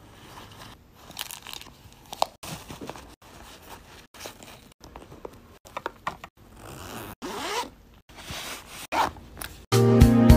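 Zippers and the rustle and scrape of small items being pulled out of zippered pouches and a fleece belt bag, in short cut-together snatches. Music starts near the end.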